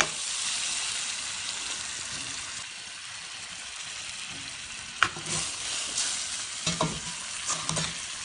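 Chicken pieces sizzling as they fry in butter in a stainless steel pot, a steady hiss. A metal spoon stirs them, clinking against the pot, a few sharp knocks in the second half.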